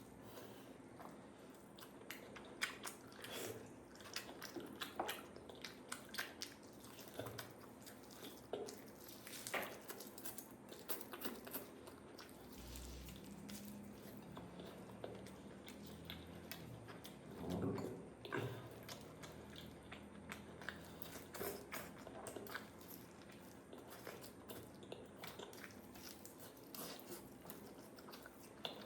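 A person chewing and biting food close to the microphone, with many short wet mouth clicks and smacks and occasional crunches.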